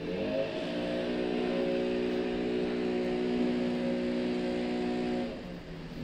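Leaf blower throttled up at the start, held at a steady high speed, then let back down toward idle about five seconds in.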